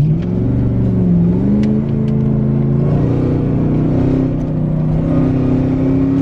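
Magnuson-supercharged 5.3-litre Chevrolet V8 accelerating hard under load, its note climbing in pitch with a brief dip about a second in, then rising steadily again.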